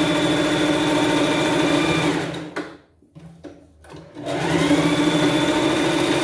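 Sewing machine motor running steadily while stitching a seam to its end with a backstitch. It stops about two seconds in, a few light clicks follow, and it starts again about four seconds in, rising in pitch as it gets up to speed.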